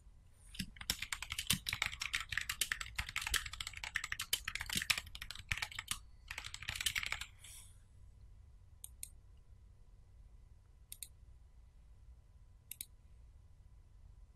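Typing on a computer keyboard: a quick, dense run of keystrokes for about seven seconds, then a few single clicks spaced out near the end.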